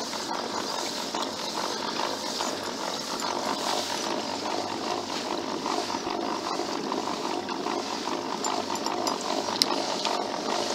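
A dog panting heavily, close to the microphone.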